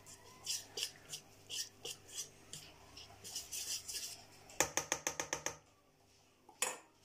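Wire whisk beating thick semolina and gram-flour batter in a stainless steel bowl, a wet swish at each stroke about three times a second. About halfway through comes a quick run of sharp metal taps of the whisk on the bowl, then one more knock near the end.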